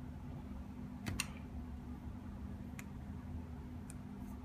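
Small plastic clicks as a white plastic servo arm is pressed onto a small RC servo's output shaft, which it clips onto without a screw: a quick double click about a second in, then single clicks near three and four seconds, over a steady low hum.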